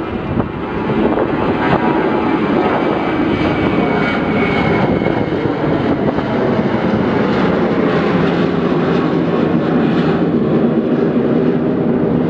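Jet engines of a Lufthansa Airbus A321 airliner climbing out after takeoff at climb power: a loud, steady rumble with a faint whine in it, swelling over the first second and then holding level.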